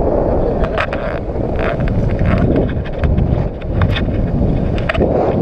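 Heavy wind rushing over the camera microphone in paraglider flight, with scattered short clicks and rattles.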